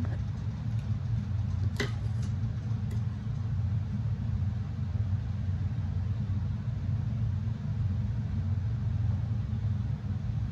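A steady low motor hum, with one short click about two seconds in.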